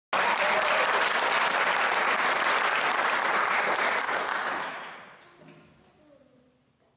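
Applause from a seated audience of karate students and onlookers, loud and steady for about four seconds, then fading away.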